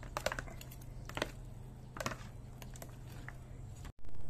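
A metal fork and slotted spoon clicking and scraping against a plastic bowl as pieces of spiced duck are tossed with mashed red fermented bean curd, with soft wet squishing of the meat. The sound cuts out for an instant near the end.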